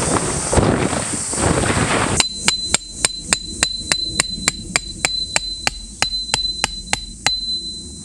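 After about two seconds of rustling, a hammer drives a steel tent peg into the ground: about three sharp metal-on-metal strikes a second, around nineteen in all, each with a high ringing note that carries between blows, stopping shortly before the end.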